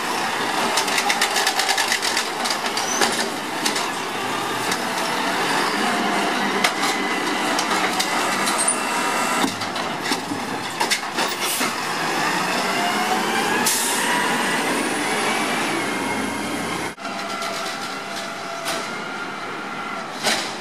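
Automated side-loader garbage truck's arm lifting and shaking a green-waste cart into its hopper, with dense rattling and knocking over the running engine. Around the middle the engine and hydraulics whine up and down in pitch as the arm works, then the sound changes abruptly to the truck driving off.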